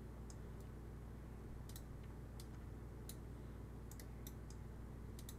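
Computer mouse clicking: about a dozen short, sharp clicks at uneven intervals, over a faint steady low hum.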